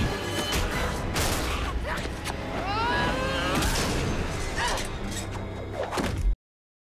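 Action-film soundtrack: loud music layered with booms and impact hits, with a gliding tone near the middle. It cuts off abruptly about six seconds in.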